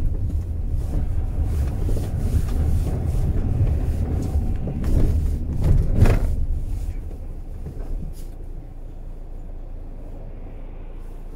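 A car driving, with a steady low road and engine rumble and a single louder knock about six seconds in. The rumble drops to a quieter low hum for the last few seconds.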